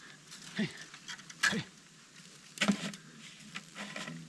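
Faint steady buzz of hornets around their ground nest, broken by a few short knocks and rustles.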